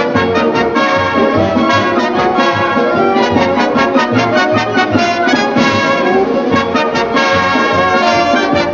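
Orchestral music led by brass, trumpets and trombones, playing many short, quickly changing notes.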